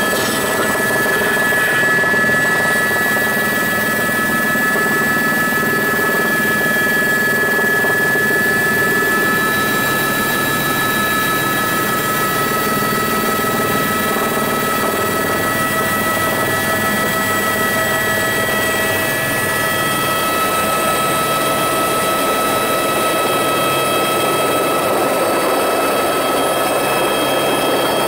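Aircraft engine running steadily and loudly, with several high steady whining tones above a dense drone.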